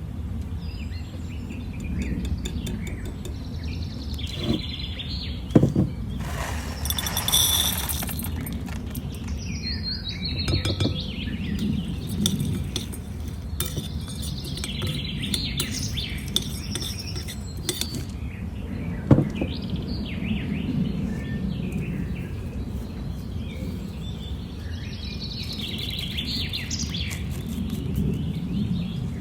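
Birds chirping over a steady low background rumble, with two sharp clinks, one about six seconds in and one about two-thirds of the way through.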